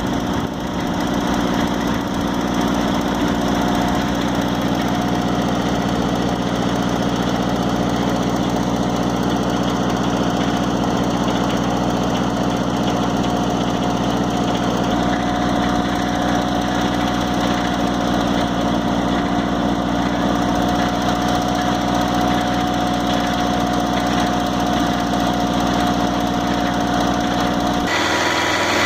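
Engine of a Mobile Dimension sawmill running steadily, with a faint thin whine above the engine note. The engine sound changes abruptly about a second before the end.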